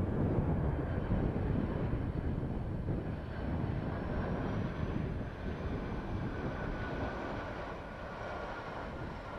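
Engines of a Boeing 757-300 (Rolls-Royce RB211s) on final approach to land: a steady jet rumble with a faint high whine on top, getting slowly quieter.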